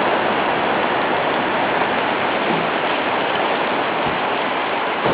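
Food sizzling steadily on a barbecue hotplate, a constant loud hiss.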